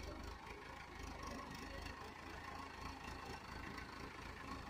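Tractor diesel engine running steadily under load as the tractor's rear tyres dig through deep loose sand.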